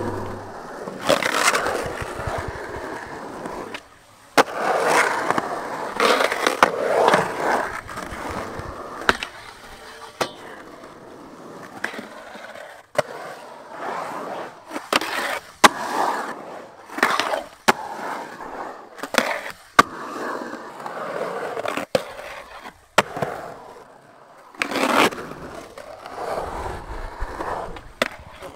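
Skateboard rolling and carving through a concrete bowl, wheels on concrete, with repeated grinds of the metal trucks along the bowl's coping, each lasting about a second. Many sharp clacks between them as the board and wheels hit the concrete and the coping.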